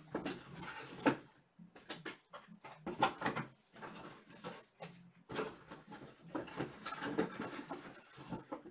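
Irregular rustling, tapping and handling noises, close by, over a faint steady low hum.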